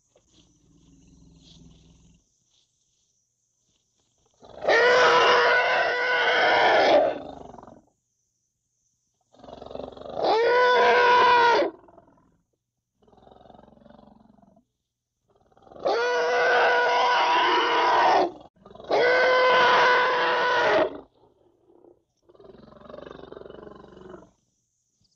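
Young African elephant trumpeting: four loud calls of about two seconds each, each holding a steady pitch, the last two close together, with fainter low calls in the gaps between.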